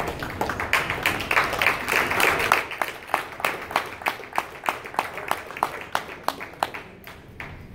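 A small group applauding: dense clapping at first that thins out to a few separate claps and dies away near the end.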